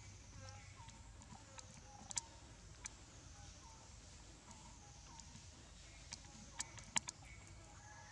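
Faint outdoor ambience: a steady high hiss with scattered short, faint chirps and a few sharp clicks, the loudest click about seven seconds in.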